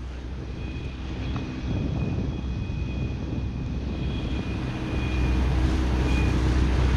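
Outboard motor pushing an inflatable dinghy along at a steady speed, a low steady hum with a thin high whine over it. It gets louder about five seconds in.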